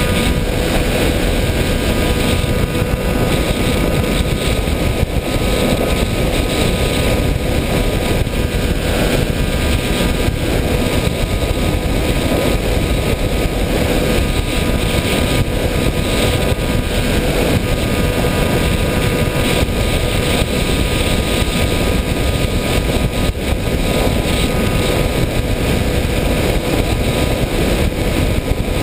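Steady rushing wind and motor noise picked up on board an FPV model aircraft in flight, with a faint constant whine under the hiss.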